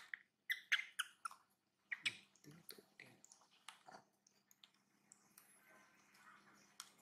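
Long-tailed macaques chewing food: a run of short crunching, smacking mouth sounds over the first four seconds, then only faint scattered ticks.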